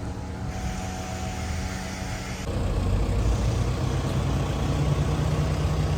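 Farm machinery engine running steadily with a low hum. About two and a half seconds in, a second motor starts and the rumble grows louder and stays up, as the soya-dosing machine is switched on.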